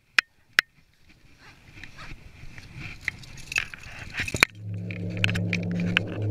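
Rustling and light clinking of climbing gear as a boot is handled. About four and a half seconds in, a steady low hum with scattered clicks starts abruptly.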